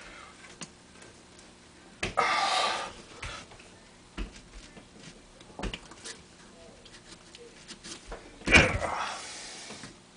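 Crumpled junk-mail paper balls pushed down onto nails in a wooden board: two loud crackles of paper, about two seconds in and again about eight and a half seconds in, with light taps and rustles between.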